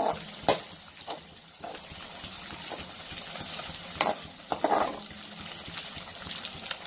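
Scrambled eggs sizzling in hot oil in a kadai, stirred with a slotted spatula that scrapes and knocks against the pan, sharpest about half a second in and again about four seconds in.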